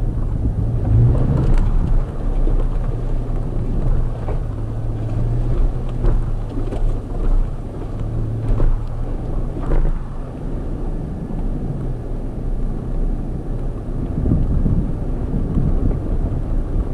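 Toyota FJ Cruiser's 4.0-litre V6 running at low speed as it crawls along a rocky dirt trail, a steady low drone, with a few knocks from the tyres and body going over rock in the first half.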